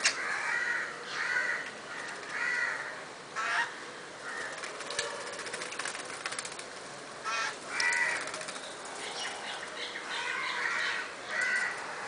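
A group of babblers giving repeated harsh, chattering calls while bathing in a water bowl, with splashing and wing-fluttering in the water between the calls.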